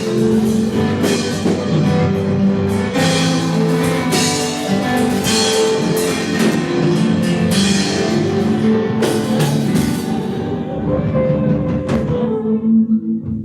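Worship band music: a drum kit with regular cymbal hits over sustained keyboard chords. The drums stop about twelve seconds in, leaving a held chord.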